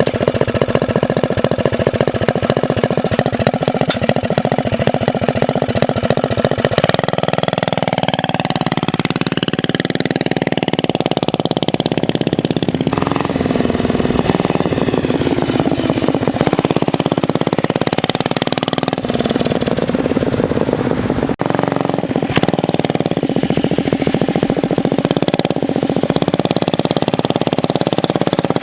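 Predator 212 single-cylinder four-stroke engine of a mini bike running under way. The pitch rises steadily for several seconds as the bike speeds up, then drops back. About two-thirds of the way through there is a sudden break, and then it runs steadily again.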